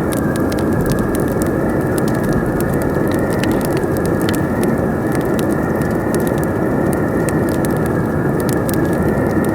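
Wood fire crackling with frequent sharp pops and snaps over a steady howling wind, a continuous roar with a thin whistling tone that wavers slightly in pitch.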